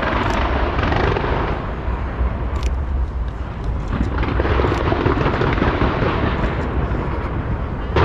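A massed fireworks barrage: continuous low rumble and crackle from many shells going off together, with a few sharper cracks standing out.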